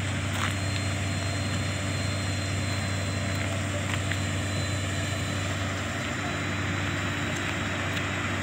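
Steady low engine drone from fire engines running at a building fire, under a constant noisy rush, with a few sharp cracks scattered through it.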